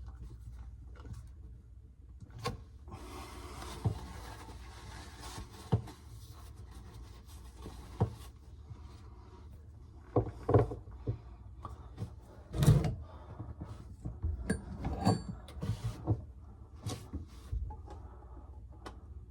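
Hands-on plumbing work: scattered knocks and clicks of tools and pipe parts being handled, with a stretch of scraping or rustling a few seconds in and the loudest knocks past the middle.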